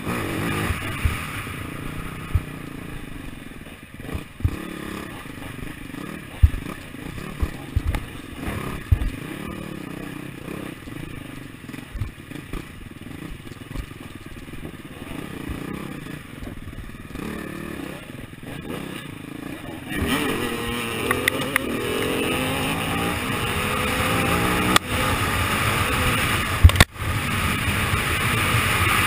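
AJP SPR 310 enduro bike's single-cylinder four-stroke engine running at low revs, with knocks and clatter from the bike over rough ground. About two thirds of the way in it revs harder and louder as the bike speeds up.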